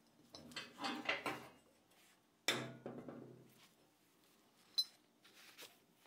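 Screwdriver turning a rusty screw in a brass candle-holder base: grating and creaking for about the first second and a half, then a sharp metallic knock with a short ring about two and a half seconds in, and a small click near the end.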